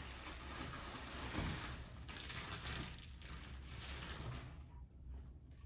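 Faint handling noises: soft rustling and light knocks as items are moved about on a table.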